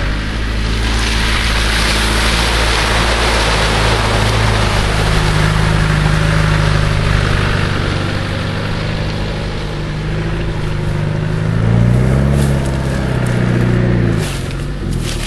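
Land Rover Discovery's engine working hard as the 4x4 drives through a muddy water hole, with mud and water churning under the wheels. Near the end the revs rise and fall twice.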